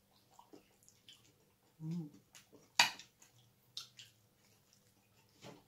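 Eating sounds of braised pork hock and rice being eaten by hand: scattered soft wet smacks and chewing clicks, a brief closed-mouth "mm" about two seconds in, and one sharp click just before three seconds in.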